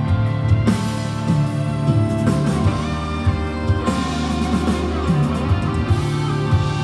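Live band music with guitar, bass and drums playing steadily.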